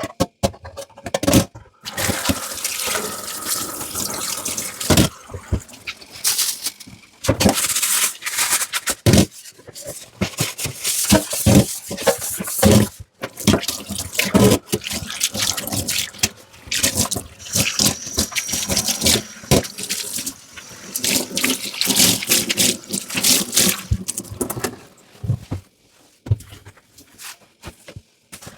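Dishes being washed in a kitchen sink: water from the tap splashing, with frequent knocks and clinks of dishes handled in it. It goes quieter near the end, with only scattered clicks.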